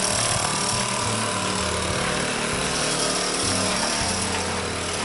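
VéloSoleX moped's small single-cylinder two-stroke engine running as it pulls away, a steady rattling buzz. The freshly rebuilt engine is running well.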